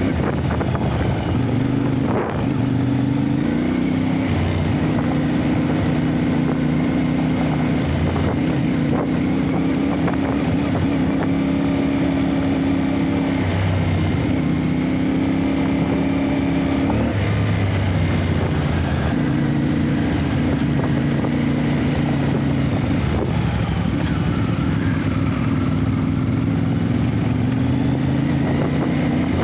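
Adventure motorcycle engine running on the move, its note stepping up and down several times as the throttle opens and closes and gears change.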